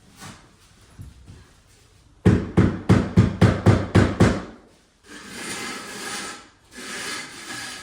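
A tile being tapped down into its bed: about ten quick, solid knocks in two seconds, then two scraping sweeps across the surface.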